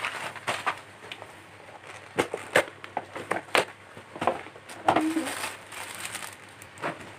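Paper gift wrapping and a plastic bag being handled: irregular crinkling and crackling.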